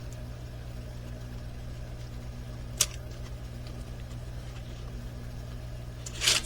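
Steady low background hum in a small room, with a single sharp click nearly three seconds in and a brief rustle near the end, as of a craft kit's packaging being handled.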